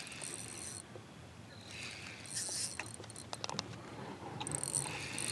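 Fishing reel being cranked in a few short spells, a light mechanical whirring, with a cluster of quick clicks about three seconds in.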